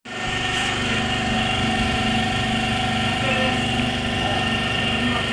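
Small engine idling steadily, cutting in abruptly after a moment of silence.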